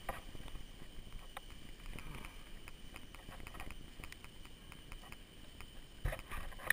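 Rough, jolting ride along a dirt trail picked up by a mounted camera: low rumble with scattered small clicks and knocks from the bumps, and a few louder knocks about six seconds in.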